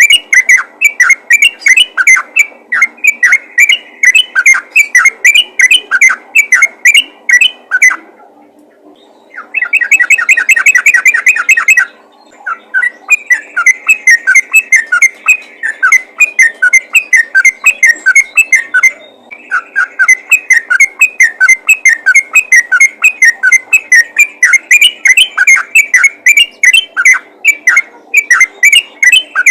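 Yellow-vented bulbul calling in a fast, loud run of short chattering notes, about four a second: the rapid 'ropel' call used to draw other bulbuls in. The run breaks off about eight seconds in, gives way to a faster, denser burst of notes, and then carries on.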